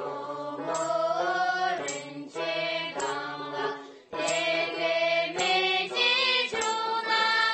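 Girls' voices singing a Tibetan folk song from Nagchu together, accompanied by plucked dranyen (Tibetan long-necked lutes) sounding sharp strokes every second or so.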